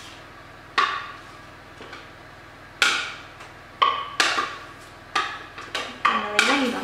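Irregular sharp knocks, about eight of them, as a utensil scrapes and taps chopped roasted cauliflower out of a plastic food processor bowl into a glass mixing bowl.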